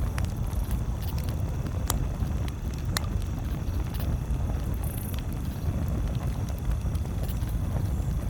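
Campfire crackling, with scattered small ticks and two sharper pops about two and three seconds in, over a steady low rumble.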